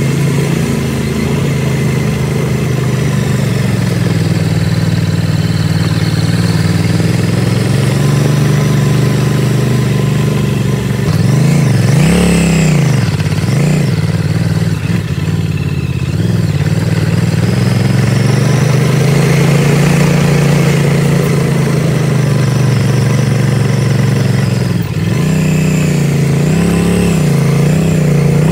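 Motorcycle engine running steadily while riding. About twelve seconds in the throttle is let off, so the pitch dips, then it is opened again, and the pitch rises and falls several times near the end.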